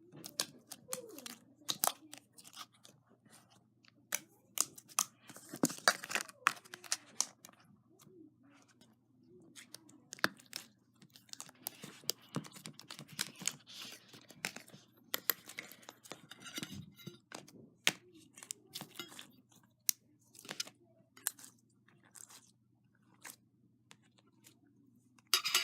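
Slime being squeezed, stretched and poked by hand, giving off irregular clusters of sharp wet clicks, pops and crackles as air pockets burst.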